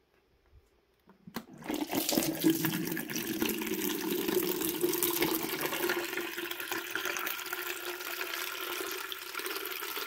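Dirty wash water draining from a folding portable washing machine in a fast, steady stream into a plastic pitcher. It begins with a click a little over a second in.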